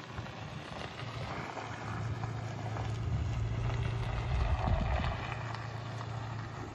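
2021 Toyota Tacoma TRD Off Road pickup driving slowly past on a dirt track, its engine a steady low hum over the noise of tyres on dirt. It grows louder to a peak about five seconds in, then eases off a little.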